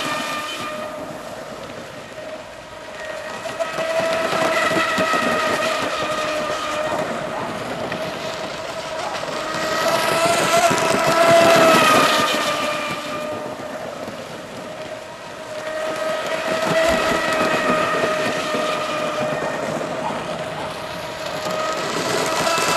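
Electric RC hydroplane running at full speed: the high, steady whine of its Neu 2215 brushless motor and propeller, with a hiss of spray. It swells as the boat passes close, about eleven seconds in and again near the end, and fades as the boat runs away between passes.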